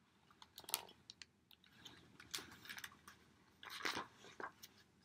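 A page of a picture book being turned by hand: faint, scattered paper rustles and soft clicks, loudest just before four seconds in.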